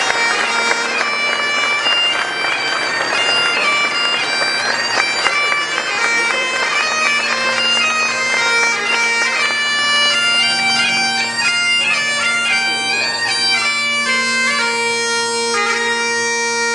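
Bagpipes playing a marching tune over steady drones, then stopping abruptly near the end.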